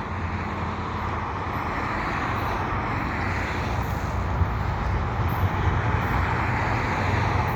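Steady low rumble and drone of an approaching CN freight train's diesel locomotives, growing slowly louder.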